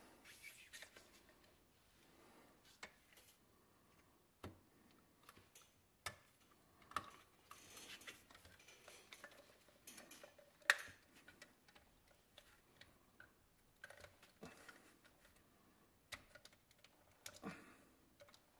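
Faint, scattered clicks and taps of small painted pressed-metal toy cement mixer parts being handled and fitted together by gloved hands, with one sharper click about halfway through.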